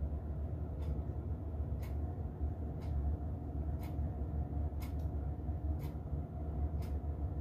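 Steady low hum, with a faint tick about once a second.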